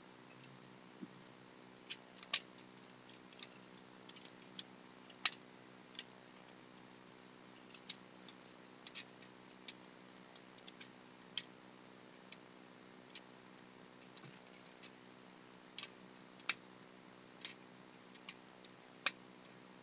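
Plastic joints and panels of a Transformers Optimus Prime action figure clicking and snapping as it is transformed by hand, in short irregular clicks, over a faint steady low hum.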